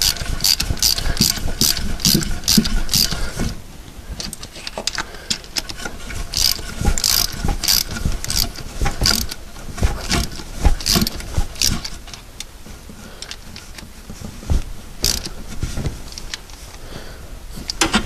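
Ratchet wrench clicking in runs of quick, even clicks with pauses between, as a bolt holding the distributor's earth cable to the engine block is tightened.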